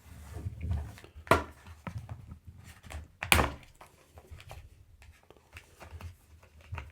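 Handling noise from a braided USB cable being turned over in the hands: soft rubbing and small ticks, with two sharper knocks about a second and three seconds in.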